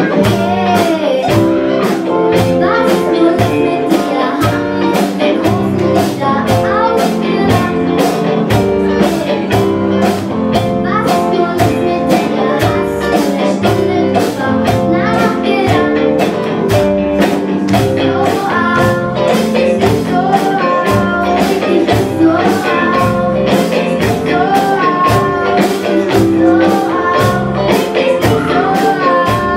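A group of children singing a pop song into microphones, backed by a band with a steady drum beat and bass line.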